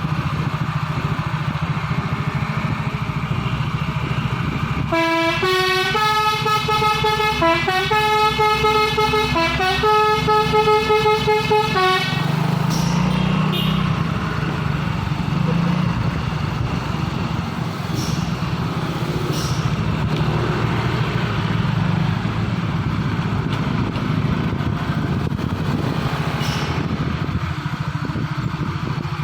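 Dump truck's telolet horn playing a tune of stepped tones for about seven seconds, starting about five seconds in, over the steady running of the truck's engine, which carries on alone afterwards.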